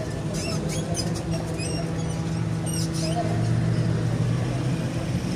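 Small birds chirping, short high chirps in scattered clusters, over a steady low hum.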